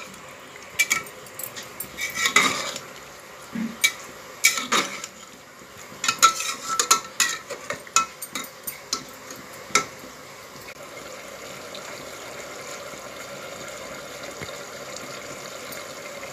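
Steel spatula scraping and clinking against the inside of an aluminium pressure cooker as thick dal is stirred, in irregular strokes for about ten seconds. After that only a steady low hiss remains.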